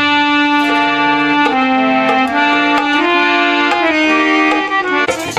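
Harmonium playing a held, chordal melody, its notes stepping from one to the next every second or so. Hand-drum strokes come in just before the end.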